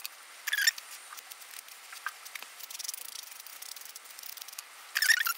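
Nail buffer block rubbing against a fingernail: two short, scratchy strokes, one about half a second in and one near the end, with faint scraping and small clicks between.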